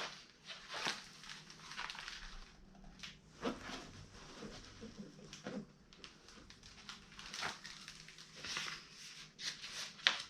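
Soft, irregular rustling and scuffing handling noises, a short burst every second or two.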